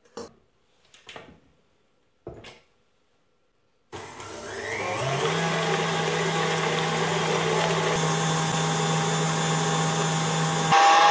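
A few light knocks, then a KitchenAid Artisan stand mixer starts about four seconds in. Its motor speeds up over the first second and then runs steadily, beating egg whites and sugar with its wire whisk. Near the end it is louder, with a different tone.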